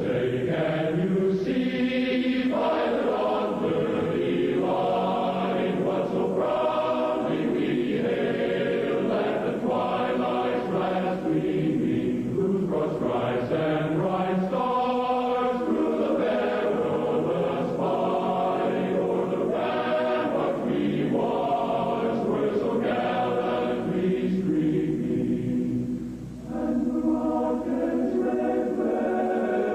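A choir singing a national anthem in long sustained phrases, with a brief break between phrases about 26 seconds in.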